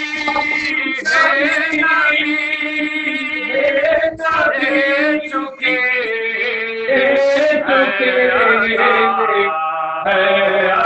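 Group of men chanting a noha, a Shia lament, in unison at a microphone: a slow melodic line held on long notes, with short breaks between phrases.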